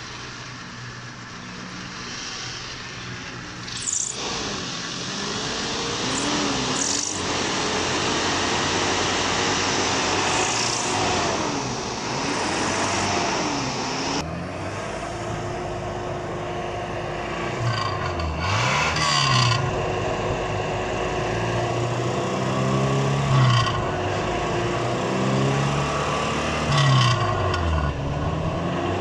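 Toyota Hilux 16-valve four-cylinder petrol engine running while its throttle and gas setting are adjusted, the revs dipping and climbing back again and again. A few sharp clicks sound early on.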